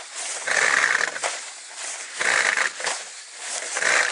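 Perforated plastic drain pipe dragged hand over hand across plastic sheeting, scraping and rustling in three pulls about one and a half seconds apart.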